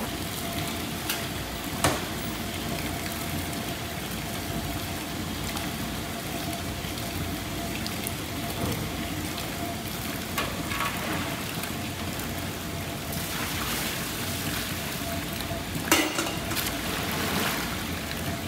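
A steady hiss like sizzling, with a faint steady hum under it, from a tofu workshop beside a steaming pot of hot soy milk. Two sharp knocks stand out, one about two seconds in and one near the end.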